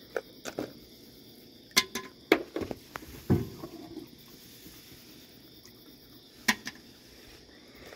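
A few sharp, irregular clicks and knocks, about six over several seconds, from raccoons feeding on crackers on a wooden deck.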